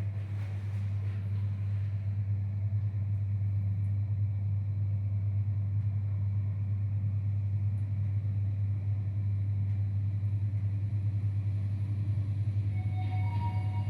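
Hitachi elevator car travelling between floors: a steady low rumble from the ride. A few short chime tones begin near the end.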